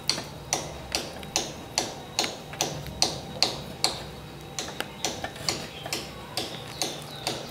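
Crisp crunching of fried bitter gourd (karela bhaja) while eating by hand, a sharp crunch about two to three times a second, growing lighter and less regular about halfway through.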